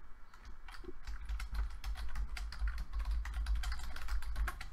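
Typing on a computer keyboard: quick, irregular key clicks while text is entered into a form, with a low hum beneath.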